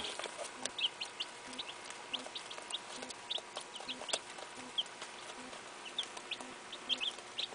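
A brood of Barred Rock chicks peeping: short, high peeps, a few each second, some falling in pitch.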